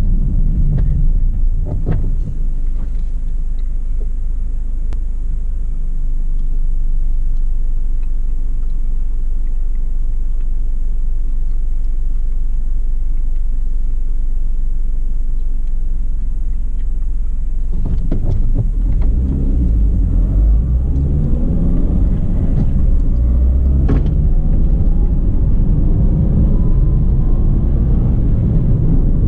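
Car engine and road noise heard from inside the cabin: a low steady rumble, then, about two-thirds of the way through, it grows louder as the car accelerates, with the engine pitch rising.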